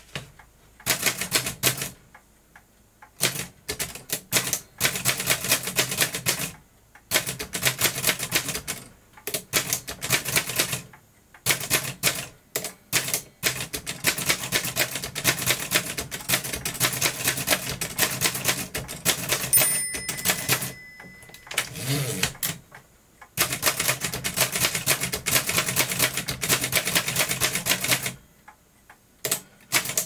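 1892 Chicago No. 1 type-sleeve typewriter being typed on: runs of rapid key clacks broken by short pauses, with one brief ring about two-thirds of the way in.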